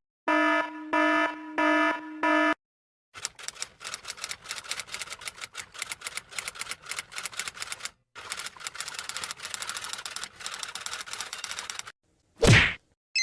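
A string of sound-effect clips: four short electronic beeps, then about nine seconds of fast typing clicks, then a single short, loud burst of noise near the end.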